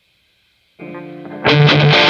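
Electric guitar with a Seymour Duncan Custom 5 bridge humbucker, tuned to D standard, played through a Crate GX-30M amp with distortion. After a silent start, a quieter note rings out just under a second in, then loud distorted chords cut in about a second and a half in.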